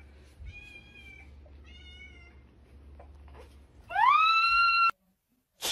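A cat meows twice in short calls, then lets out one much louder, drawn-out yowl that rises in pitch and holds, cut off abruptly.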